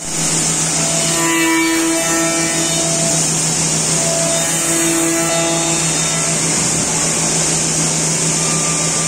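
Bacci Master CNC machining centre milling a curved wooden chair part: a steady high-pitched hiss and a low hum from the running spindle, with short tones that come and go as the cutter works the wood.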